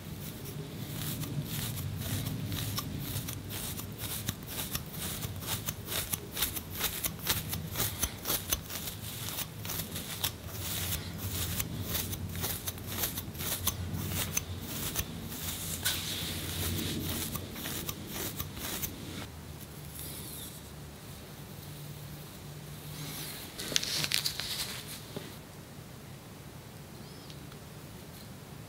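Close scratching and scraping on the scalp and hair, lifting dandruff flakes of seborrheic dermatitis. A quick run of short, sharp scratch strokes goes on for most of the first two-thirds, then thins out, with one louder rustling scrape near the end.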